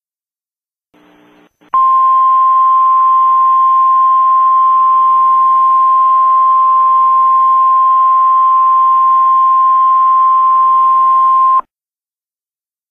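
Emergency alert attention tone: a single steady electronic tone with a hiss behind it, starting about two seconds in, held for about ten seconds and cutting off sharply.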